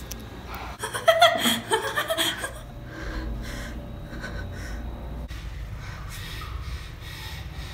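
A person's loud voiced outburst, like a laugh or gasping cry, about a second in, then quieter heavy breathing with repeated breaths.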